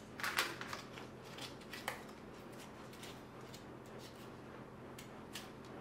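Light rustling and small clicks of hands handling an EVA foam lily and its wire-stemmed foam leaves as the leaves are fitted to the stem. A few sharper clicks come in the first half second and again near two seconds in.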